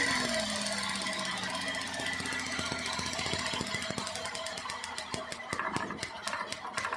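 Suzuki K6A three-cylinder engine running while one of its ignition coils fires through a spark tester: a rapid train of sharp snapping ticks over the engine hum, part of chasing a misfire and hard starting. The engine note settles lower in the first second, and the ticks grow more distinct and spaced out near the end.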